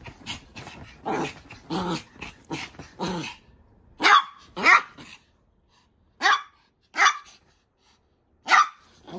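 Maltese dog play-growling and barking excitedly. A few short growls come in the first three seconds, then five sharp, high barks about a second apart.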